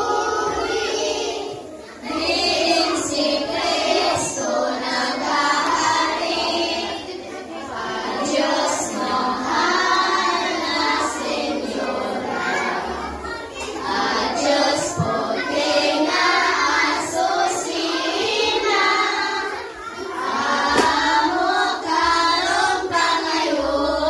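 A group of children singing together in unison, a choir of young voices, with short breaks about two seconds in and again near twenty seconds.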